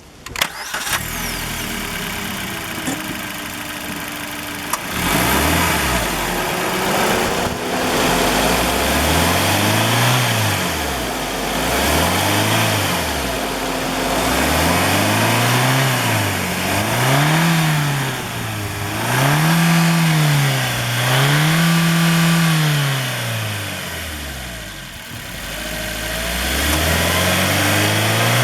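Maruti Suzuki Baleno petrol engine starting up, idling briefly, then revved repeatedly, about nine times, each rev rising and falling over a couple of seconds.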